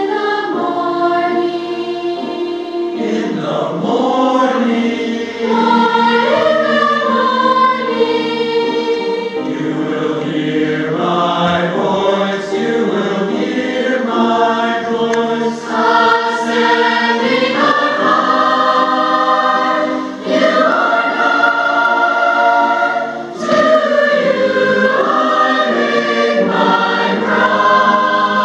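Mixed choir of children, teenagers and adults singing a hymn, many voices holding long sung notes together, with brief breaks between phrases about 20 and 23 seconds in.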